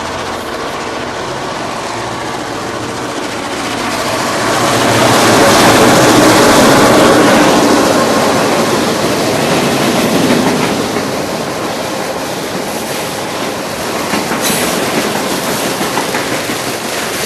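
Freight train passing, its noise swelling to a peak a few seconds in and then easing off; a bit loud.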